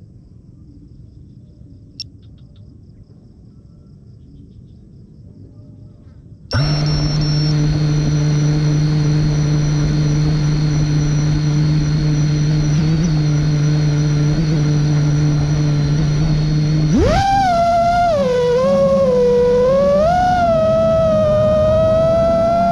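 Motors of a 5-inch FPV racing quadcopter (Xilo 2207 1750KV on 6S). About six and a half seconds in they start spinning at a steady idle hum. About seventeen seconds in the drone is throttled up and takes off, and the motor whine rises sharply, then wavers up and down with the throttle.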